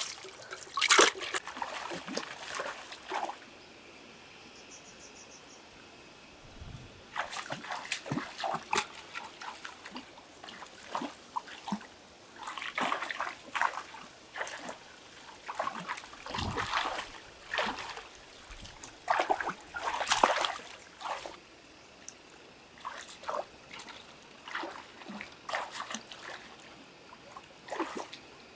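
Water splashing and trickling in short, irregular bursts, with a lull of a few seconds shortly after the start.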